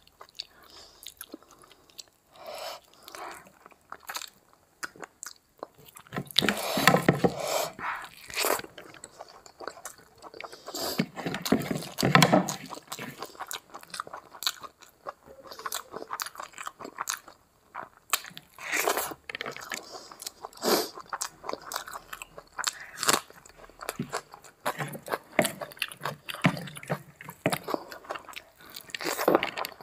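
Close-miked chewing and wet mouth sounds of a person eating big handfuls of rice and curry: irregular clicks and smacks, louder about 7 and 12 seconds in.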